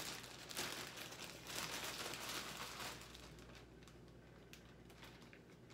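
Faint rustling and crinkling as fruit is handled for the blender, louder for the first three seconds, then fading to a few light clicks.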